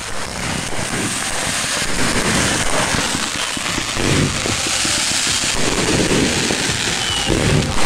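Consumer fireworks cakes firing in quick succession: a dense, continuous crackle of launches and bursts, with heavier booms about four seconds in and near the end.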